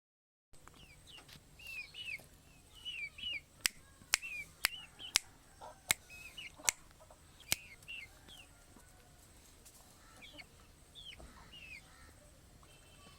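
Chickens calling: a steady string of short, high chirping calls, with several sharp clicks in the middle stretch.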